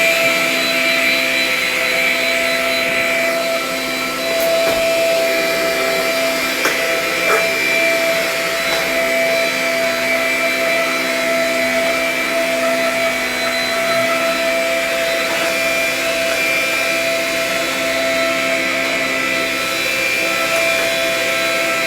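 Vacuum cleaner running steadily with a constant high motor whine, with a few faint knocks as it is pushed about.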